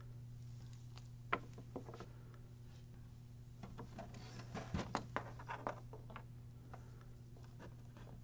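Faint handling sounds of a printer power cord: a sharp click about a second in, then a run of light clicks and taps as the cord and plug are handled against the printer's plastic back, over a low steady hum.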